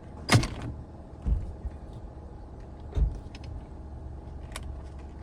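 Hand tools and parts knocking and clicking while a steering wheel is taken off in a car: a sharp metallic clatter just after the start, two dull knocks, and scattered small clicks over a steady low hum.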